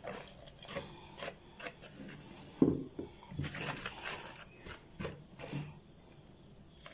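A wire whisk and utensils scraping and stirring through gram flour and wet potato batter in a plastic bowl, with irregular knocks and one sharper knock about two and a half seconds in.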